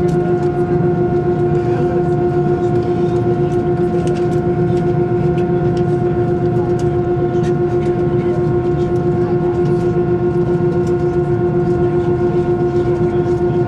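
Airbus A321 engines at taxi power heard from inside the cabin over the wing: a steady drone with a strong humming tone over a low rumble. Faint scattered clicks and rattles run through it.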